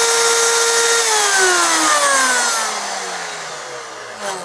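Handheld electric wood router running at full speed with a steady whine. About a second in it is switched off and spins down, its pitch falling steadily as it fades.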